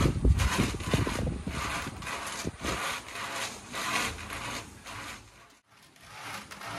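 Sago palm trunk being rasped against a motor-driven sago grater, a rhythmic scraping as the wood is pushed back and forth and shredded into pith, about two to three strokes a second. The scraping breaks off for a moment near the end and then resumes.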